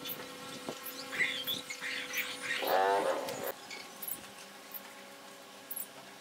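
An animal calls once near the middle, a single call of about a second, over a steady low hum.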